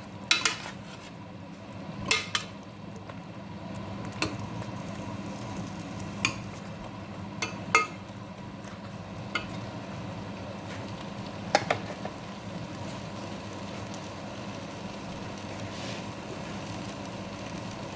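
Potatoes and spices frying in a pan with a low sizzle, a utensil stirring and knocking against the pan every second or two, the knocks stopping after about twelve seconds. A steady low hum runs underneath.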